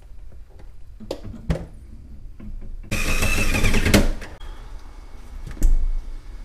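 Flat-screen TV being hung on its wall mount: a few light knocks, then about a second of scraping and rattling about three seconds in as the mounting brackets slide onto the wall plate, and a clunk near the end as it seats.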